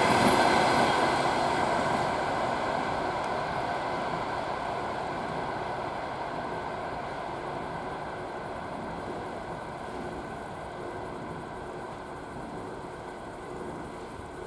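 Rumble of a passenger train's coaches rolling on the rails, fading steadily as the train pulls away.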